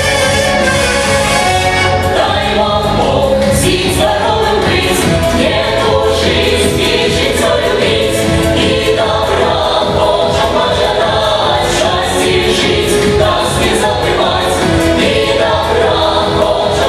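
Live folk band music: voices singing together, with women at the front, over fiddle, accordion, bass guitar and a drum keeping a steady beat. The singing comes in about two seconds in, after a short instrumental passage.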